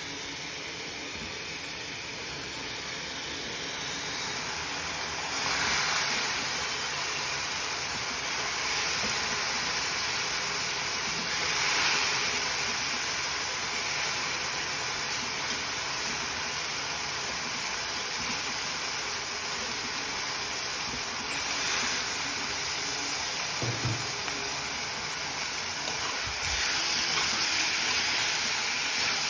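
Cluster beans, onions and tomatoes sizzling in a frying pan: a steady hiss that swells a few times, with a couple of low knocks near the end.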